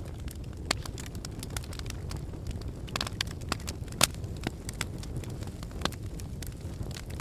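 Wood fire crackling, with frequent sharp pops and snaps over a steady low noise of the flames; the loudest pop comes about four seconds in.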